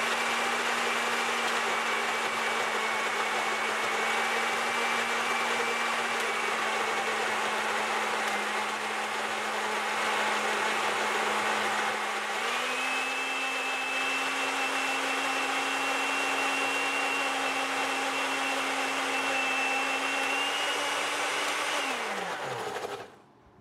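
Electric countertop blender running, liquefying a burger, fries and milkshake. Its motor hum and whine step up in pitch about halfway through, then wind down and stop near the end.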